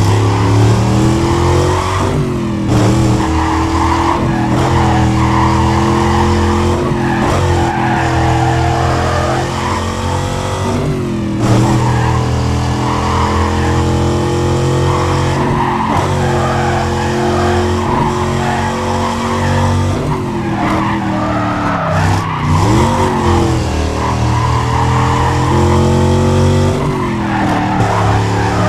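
Traxxas XO-1 radio-controlled car driving, heard from on board: its motor sound climbs in pitch with speed and drops back every few seconds, over constant tyre noise from the wheels on the surface.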